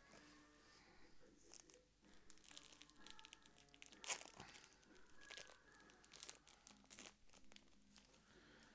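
Faint crinkling and tearing of a Yu-Gi-Oh booster pack's foil wrapper being torn open, with scattered crackles and one sharper crackle about four seconds in.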